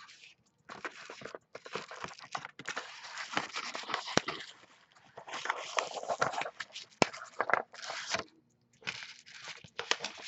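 A sealed cardboard trading-card box being opened by hand: irregular tearing, crinkling and scraping with sharp clicks and crackles, broken by short pauses.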